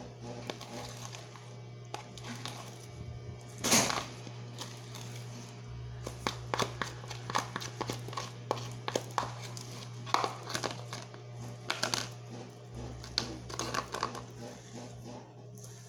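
Background music over a steady low hum, with irregular crinkling and clicking handling noises; the loudest comes about four seconds in, and a run of them follows in the middle.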